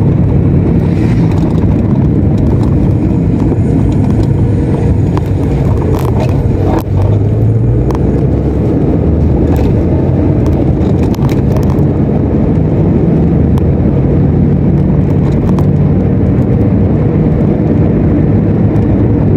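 Car running along a road, heard from inside the cabin: a steady low engine drone with road noise and a few light clicks.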